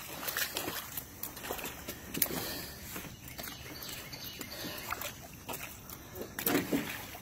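Catfish crowded in a hoop net flopping and splashing at the water's surface as they are let out, a string of irregular wet slaps and knocks, busiest about six and a half seconds in.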